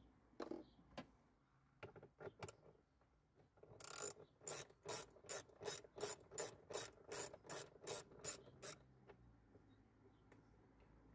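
Hand ratchet wrench clicking as it is worked back and forth on a fastener of a car's cabin filter housing: a few scattered knocks, then from about four seconds in a run of sharp, even clicks, about four a second, that stops some five seconds later.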